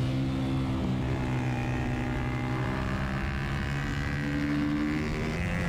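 Twin-cylinder engine of a Mini Twins race motorcycle heard on board, running under load at steady revs while accelerating gently out of a slow corner, with wind and road noise.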